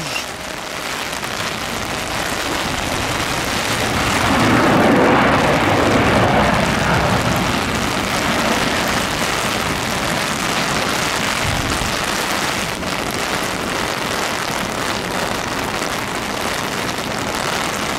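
Heavy rain coming down steadily, with the distant rushing of a twin-engine jet airliner's engines rising to its loudest about four seconds in and then easing back into the rain.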